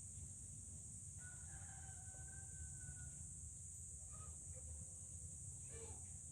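A rooster crowing once, faint, a long held call of about two seconds, followed by a few short, faint calls later on, over a steady high-pitched hiss.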